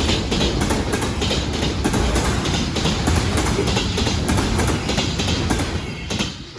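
Train wheels clattering rhythmically over rail joints as the train rolls past, fading away near the end.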